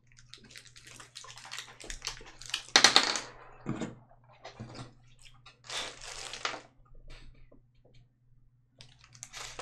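Small plastic candy wrapper crinkling and rustling as it is torn open, in short bursts, the loudest about three seconds in and again about six seconds in.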